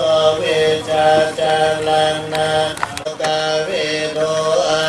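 Buddhist chanting in Pali: a low male voice intoning verses in long held tones, gliding slowly from one pitch to the next.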